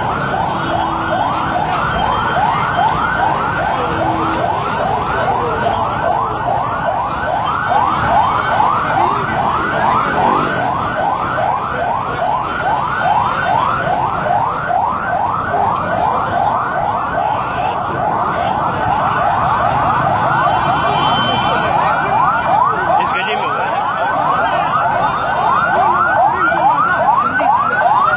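Emergency vehicle siren in fast yelp mode: a rising sweep repeated about three times a second, without a break.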